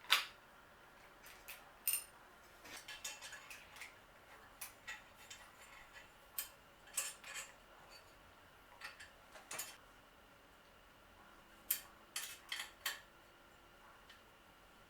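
Irregular metallic clicks and clinks of hand tools and bike parts being handled during a bicycle teardown. The sharpest clink comes right at the start, and a quick cluster follows near the end.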